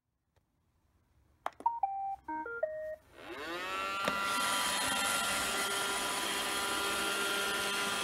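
A Roomba robot vacuum starting a cleaning run. A click is followed by a quick tune of electronic beeps at several pitches, then its brush and vacuum motors spin up with a rising whine and settle into a steady whirring hum.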